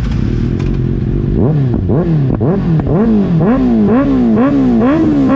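A 2024 Kawasaki ZX-6R's inline-four engine breathing through an IXIL aftermarket exhaust, idling briefly and then blipped over and over. The revs rise sharply and fall back two or three times a second.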